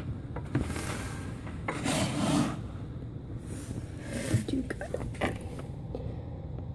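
Handling noise from a handheld phone being moved about: a few noisy rubbing swishes, the loudest about two seconds in, and a few small knocks, over a steady low hum.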